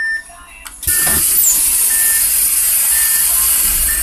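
A city bus's pneumatic door gear working: about a second in a thump, then a long hiss of compressed air, while a door warning beeper sounds about once a second.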